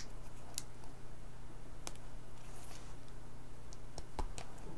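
Scattered clicks of a metal pin being pushed into a plastic solderless breadboard's holes to force a metal contact strip out of the back, with three clicks close together near the end. A steady low hum runs underneath.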